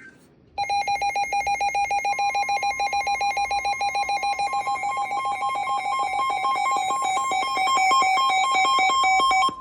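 Emergency alert tones for a severe thunderstorm warning. A loud, rapidly pulsing electronic alarm beep starts about half a second in, and a steady single warning tone joins it about two seconds in. The pulsing cuts off suddenly just before the end while the steady tone holds.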